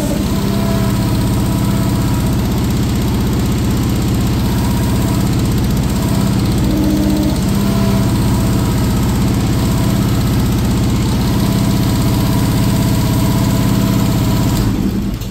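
Small engine of a 1-ton mini excavator running steadily and driving the hydraulic pump while the joysticks are worked, with slight shifts in pitch as the hydraulics take load. It shuts off at the very end.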